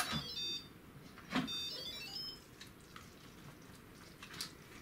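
Lid of a 6-quart Instant Pot electric pressure cooker twisted open after pressure release: a clunk with a short descending electronic chime, then a second clunk and the same falling chime about a second and a half in, as the lid unlocks.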